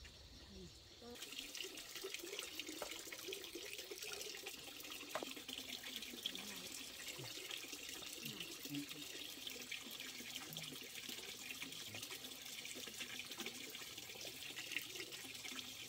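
Steady splashing water noise, like water running from a tap or pipe, starting suddenly about a second in.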